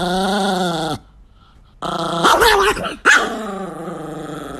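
A Chihuahua growling in three long, drawn-out growls. The second wavers up and down, and the last slowly sinks in pitch.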